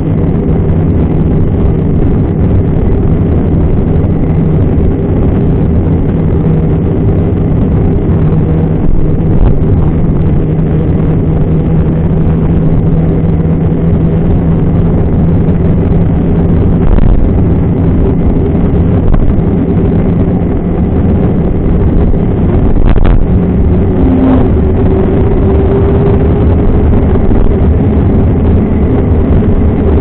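Steady rumble and wind buffeting on a bicycle-mounted action camera as the mountain bike rolls along asphalt, with a low hum from the tyres and frame and a couple of sharp knocks about three-quarters of the way in.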